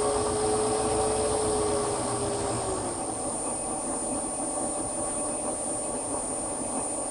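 Milling machine running steadily with a high whine. A second, steadier motor tone drops away about three seconds in.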